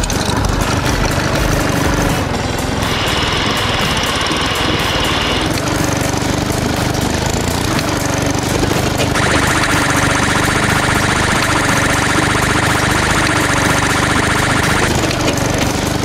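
A small machine's engine running steadily with a fast rattle, a working-machine sound effect for a small paving vehicle. A higher whirring layer comes in about three seconds in, and again from about nine seconds until shortly before the end.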